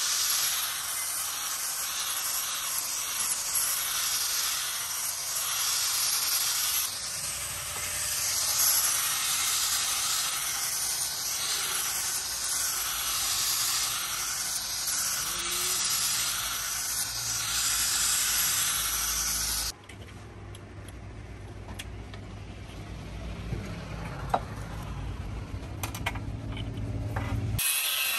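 Angle grinder with a sanding disc grinding rust off a steel saw blade: a steady, dense hiss. About two-thirds of the way in the grinding cuts off suddenly, leaving a quieter low hum, and just before the end the grinder bites into the steel again.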